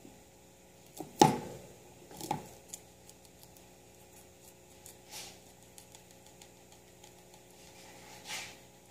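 Guinea pig eating fresh leafy greens: irregular crunching and rustling bites. The loudest comes about a second in, another follows near two seconds in, and quieter ones are spread through the rest.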